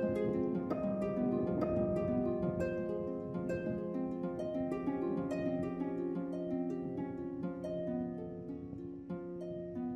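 Background music: a melody of plucked string notes, each ringing and fading.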